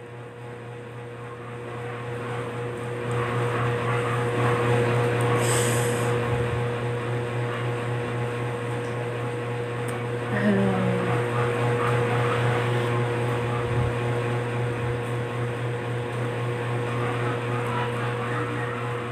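Steady hum of a small electric fan running.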